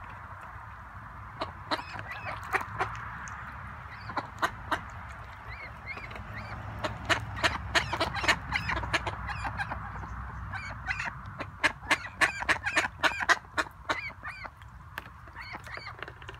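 Domestic ducks quacking: many short quacks in quick runs, thickest around the middle and again later on, over a steady background hiss.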